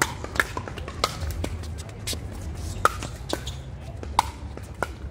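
Pickleball paddles striking a plastic pickleball in a fast doubles volley rally: a quick run of sharp pops, about two a second at uneven spacing.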